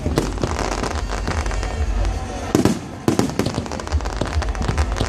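Aerial fireworks bursting in quick, irregular succession: a steady run of booms and cracks, with a louder cluster of bangs about halfway through.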